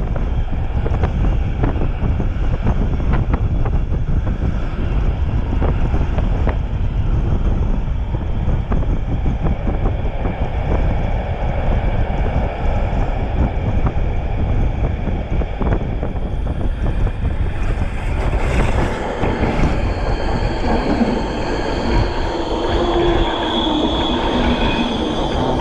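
Passenger train running on rails: a steady rumble of wheels with scattered clicks over joints and points. From about two-thirds of the way through, high-pitched wheel squeal sets in and an oncoming train passes close alongside.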